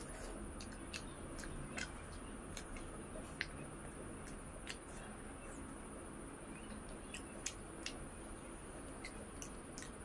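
Close-up eating sounds: irregular wet mouth clicks and smacks of chewing, a few sharper ones, over a steady hiss.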